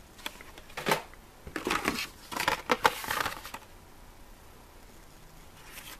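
Plastic blister packs on cardboard backing cards crinkling and clicking against each other as one carded die-cast car is put back and the next is pulled from the stack. The handling starts with a short rustle about a second in, then a dense run of crinkles until about three and a half seconds in.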